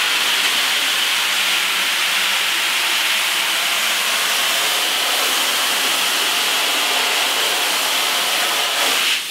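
Garden hose spray nozzle spraying water onto a screen-printing mesh screen, a steady hiss, rinsing the degreaser off the screen. The spray briefly drops near the end.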